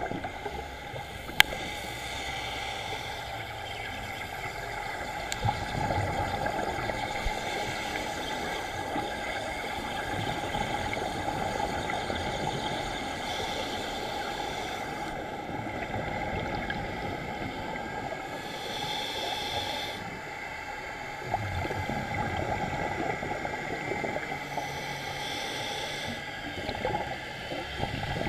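Muffled underwater noise picked up through an action camera's waterproof housing during a scuba dive, with the diver's regulator breaths and bubbles swelling every several seconds. A single sharp click about a second and a half in.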